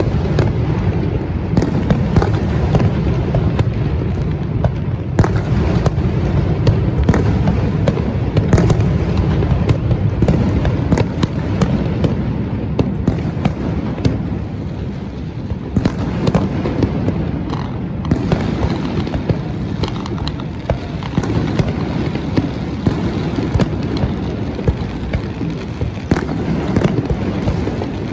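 Fireworks display: shells bursting in a dense, continuous barrage, many sharp cracks and pops over a steady deep rumble of booms.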